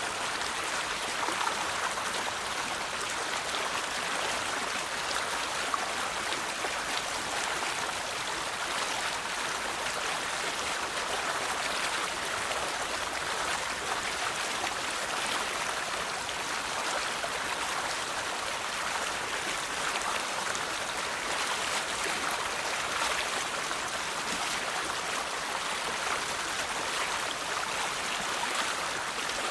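A river flowing steadily over stones, a continuous rushing and babbling of water with no breaks.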